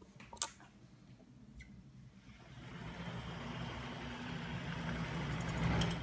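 Two sharp clicks, then a homemade magnet-and-crankshaft engine rig running with a steady mechanical whir and hum from its electric motor and spinning parts, growing louder and loudest near the end.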